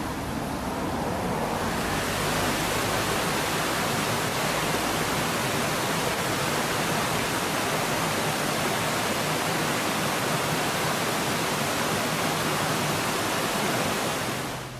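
Rushing water of a mountain stream, a steady full roar that swells over the first two seconds and drops away sharply near the end.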